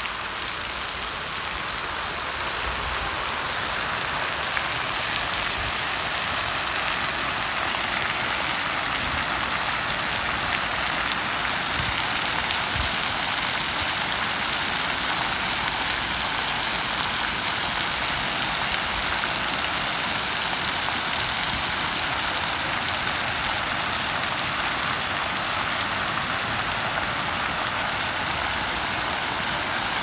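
Large fountain's water jets, a tall central spout and a ring of arcing jets, falling and splashing into the basin: a steady hiss of falling water.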